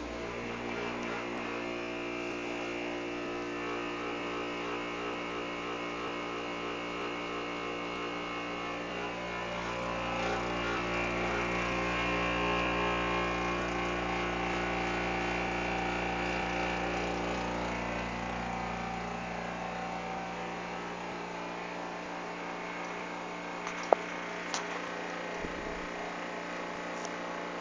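Brastemp Active refrigerator running with a loud, steady mechanical drone made of several steady hum tones, swelling louder for several seconds in the middle; a couple of sharp clicks near the end. The owner finds the noise abnormal, likening it to a tractor in the kitchen.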